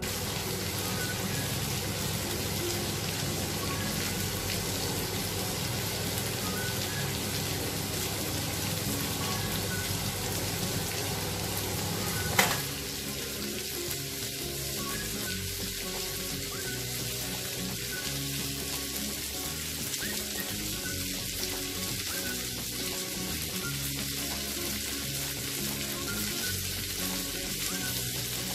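Shrimp frying in oil on a cast-iron sizzling plate, a steady sizzle throughout. A single sharp click sounds about twelve seconds in.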